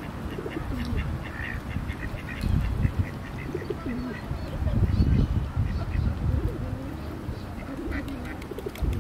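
Pigeons cooing in low, rolling coos, with a quick run of high chirps over the first four seconds. Underneath is a low rumble, loudest about five seconds in.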